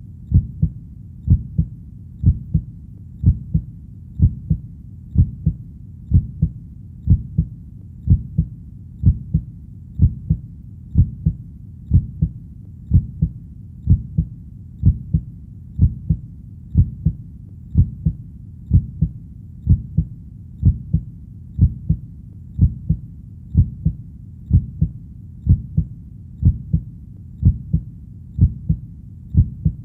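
Heartbeat, a steady slow rhythm of muffled low double thumps (lub-dub) repeating evenly without change.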